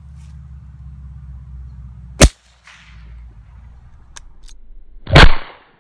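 Two sharp .22 LR gunshots, about three seconds apart, firing hollow-point rounds. The second shot is slightly longer, with a brief ring after it.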